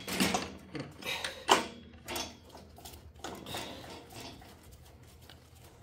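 Metal clinks, knocks and scrapes as a rubber engine mount is worked into place between a Peugeot 405 engine's mounting bracket and a steel tube frame. The sharpest knock comes about a second and a half in.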